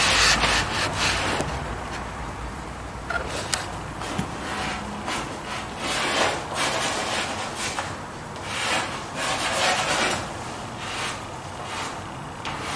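Soft pastel stick scratching and rubbing across sanded pastel paper in a run of uneven back-and-forth strokes as colour is laid down.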